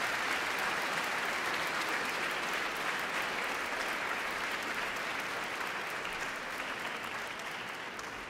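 Audience applauding steadily in a concert hall, the clapping thinning out and fading near the end.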